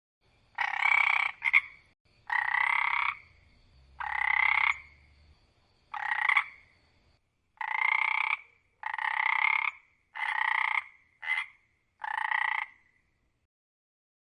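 An animal calling in a series of about ten short pitched calls, each under a second long and spaced about a second apart, two of them much shorter.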